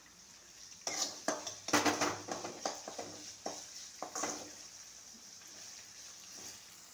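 Sliced onions being stirred and scraped around a metal kadai with a spatula. A run of scraping strokes comes from about one to four seconds in, over a steady light sizzle of the onions frying.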